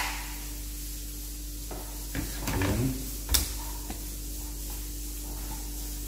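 Milk container of a Nespresso Lattissima One snapping onto the machine with a sharp plastic click, then light handling knocks and one more sharp knock about three seconds in, over a steady low hum.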